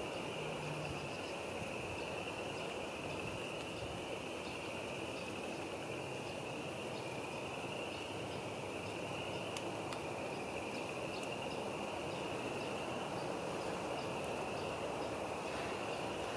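Steady woodland ambience: a continuous high-pitched chorus over an even low rush of distant noise.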